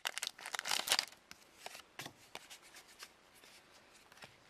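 Foil booster-pack wrapper crinkling and tearing as it is opened, loudest in about the first second, then faint rustles and light taps of cards being handled.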